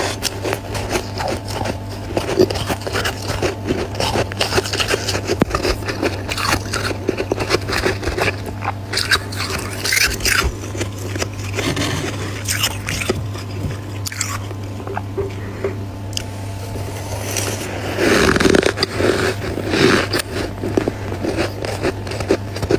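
Close-miked biting and chewing of powdery freezer frost: dense crackly crunches throughout, with a louder run of bites near the end, over a steady low hum.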